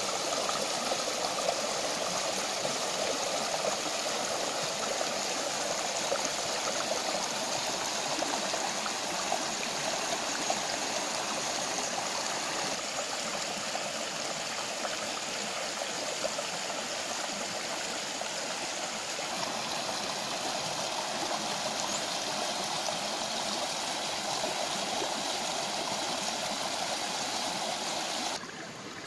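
Rocky stream rushing over a small cascade: a steady, even rush of water that cuts off shortly before the end.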